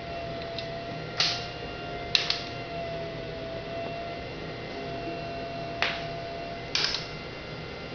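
A steady, slightly wavering electrical-sounding hum, with a few short, sharp scratchy noises about a second in, around two seconds, and twice near the end.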